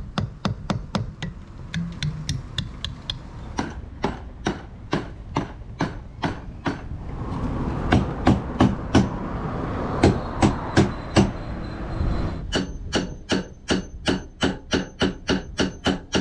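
A hammer striking a stainless-steel steering collar clamped very tight around a sailboat's rudder shaft: steady repeated blows, about two to three a second, some with a faint metallic ring. The blows land harder and thicker in the middle stretch. The collar is seized on the shaft and is being beaten loose.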